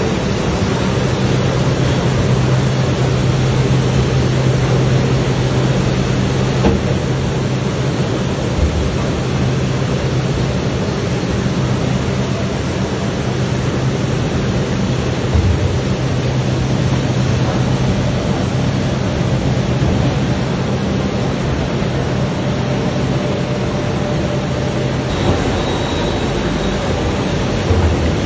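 Snack-processing machinery running: a rotating coating drum pouring puffed snack balls onto a conveyor belt, giving a steady low hum over a constant rushing noise, with a few brief knocks.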